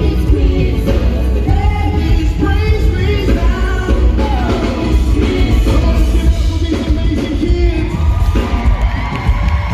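Music with singing over a strong, steady bass.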